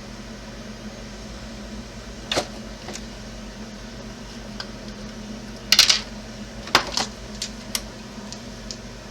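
Scattered light clicks and taps from handling small parts and tools while fitting a plow linkage on an RC vehicle, with the loudest cluster about six seconds in. A steady low hum runs underneath.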